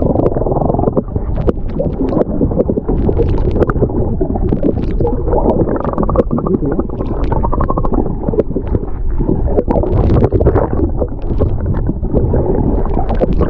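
Muffled, continuous gurgling and rumbling of seawater around a submerged camera microphone, with many small clicks and crackles throughout.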